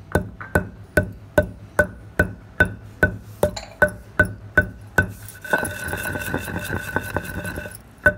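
Pestle pounding cumin seeds in a mortar, in an even rhythm of about two to three ringing strikes a second. Between about five and a half and eight seconds in, a held ringing tone and a rougher rustle sound under the strikes.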